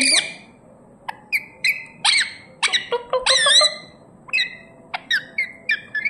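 Pet rose-ringed (Indian ringneck) parakeet giving a quick series of short squeaky chirps, with one longer wavering call about three seconds in.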